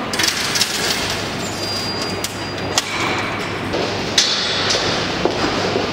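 Underground metro station ambience: a steady rumble and hiss with a low hum, broken by scattered sharp clicks and knocks.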